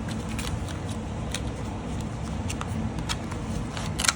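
Light clicks and taps of small plastic containers of nail chrome powder being handled, with a sharper click near the end, over a steady low background hum.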